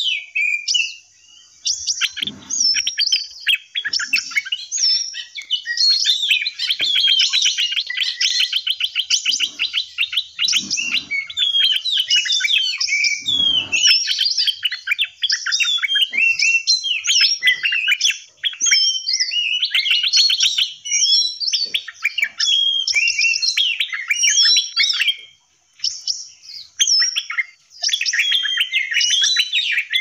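Several kinds of songbirds in an aviary singing and chirping at once: a dense, overlapping chorus of whistles and warbled phrases, with a fast rattling trill a few seconds in.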